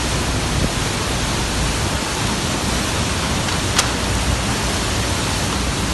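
Typhoon wind and driving rain, a steady, loud rush of noise, with one sharp click about two-thirds of the way through.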